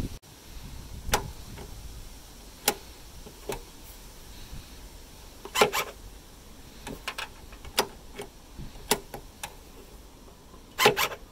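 Scattered sharp clicks and knocks of a car tailgate lock's plastic and metal parts being handled and fitted, a few seconds apart, with the loudest cluster near the end.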